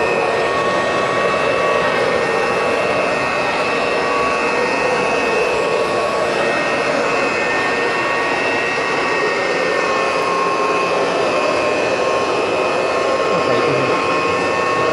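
1950s Kirby upright vacuum cleaner running steadily: a constant rush of air with a steady whine from its motor.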